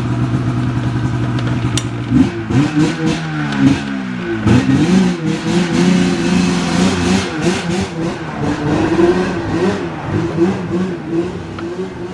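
An engine idling steadily, then revved up and down over and over from about two seconds in, with some metallic clatter.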